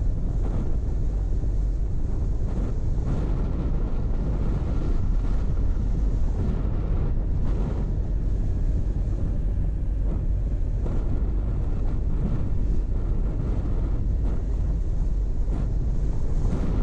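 Car driving along: steady low road and engine rumble mixed with wind buffeting the microphone, with a few faint knocks.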